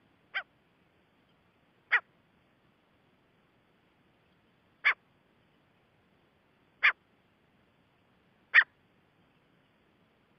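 Gray francolin calling: five short, sharp single notes spaced about two to three seconds apart, the first one fainter, as played from a hunting lure recording.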